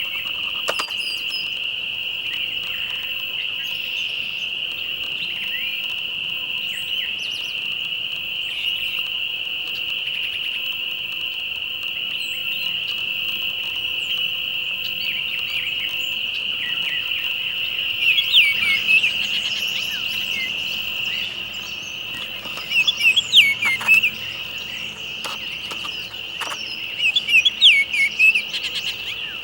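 Insects keep up a steady, high-pitched drone. Birds chirp over it in three quick clusters of short calls: about two-thirds of the way in, again a few seconds later, and near the end.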